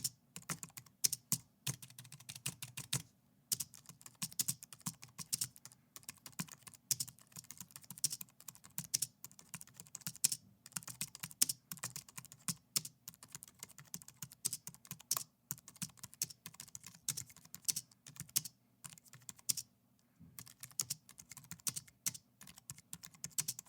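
Typing on an Apple keyboard: fast runs of light key clicks, broken by a few short pauses.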